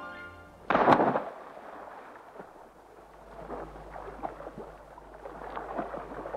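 A swimmer plunges into the sea with one loud splash just under a second in, followed by a crackling wash of splashing and bubbling water.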